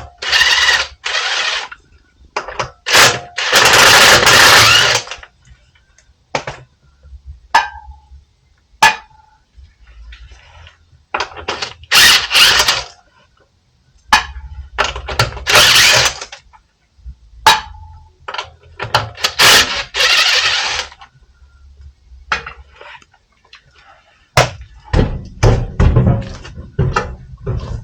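Car repair tool work: several bursts of about a second each of rapid hammering, typical of an impact wrench, between metallic clanks and clicks of tools, a few of which ring briefly. Near the end comes a run of heavy low knocks.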